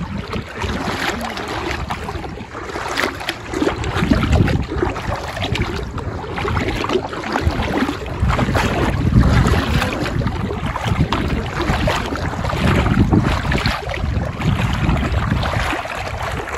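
Sea water sloshing and splashing around someone wading waist-deep across to an island, with wind buffeting the microphone in uneven low rumbling gusts.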